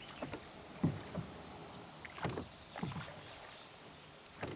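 Wooden rowboat being rowed on calm water: oars dipping and pulling, heard as several soft, short splashes and knocks at irregular intervals.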